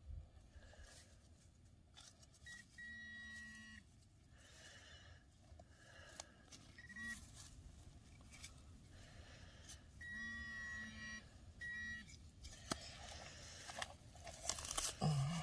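Metal-detecting pinpointer probed into a dug hole, sounding short steady high beeps with a low buzz under them, in three groups, the longest about a second: the signal of metal in the soil. Soft scrapes of a trowel in dirt and dry grass between.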